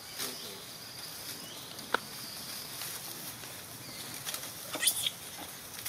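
Dry leaf litter rustling and crackling as macaques move over it. A sharp click comes about two seconds in, and near the end a flurry of clicks and a short, high, rising chirp.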